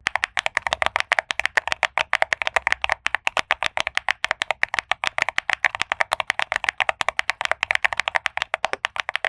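Fast, steady typing on a mechanical keyboard fitted with PBT double-shot Cherry-profile keycaps, about nine clacky keystrokes a second.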